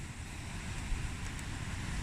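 Strong wind gusting, buffeting the microphone with a low fluttering rumble over a steady rushing noise.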